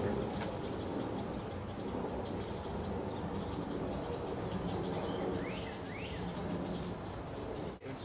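Insects chirping steadily in rapid high pulses over a low background noise, with two short bird calls about five and a half seconds in.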